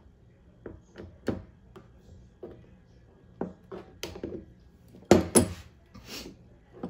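Hand tools clicking and knocking against a plastic water tank as a sensor screw is fitted, with two louder knocks about five seconds in.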